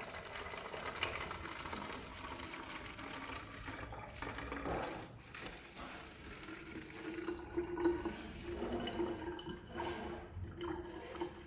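Vinegar being poured from a large plastic bottle into a narrow plastic water bottle, liquid running and splashing continuously.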